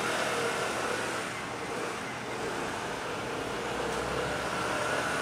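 Steady motor-vehicle and traffic noise, with a faint constant hum running through it.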